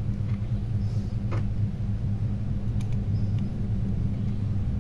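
A steady low hum, with a few faint, short clicks from a precision screwdriver driving small screws into a Nokia N71's frame.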